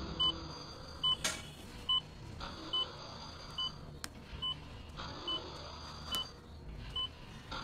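Bedside patient monitor beeping with the heartbeat: short, even, high beeps at a steady rate a little faster than once a second.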